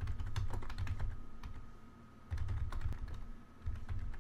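Computer keyboard typing: irregular runs of quick keystrokes with short pauses, each run carrying dull low thuds, over a faint steady high hum.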